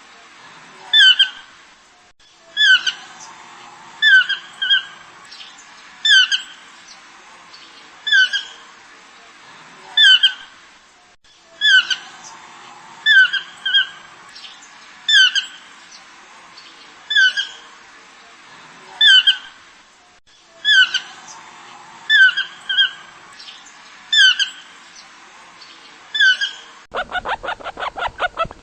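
Deer calls: short, high-pitched calls, each slightly rising, repeated about once every one to two seconds and sometimes in quick pairs. Near the end a different, rapidly pulsing animal sound takes over.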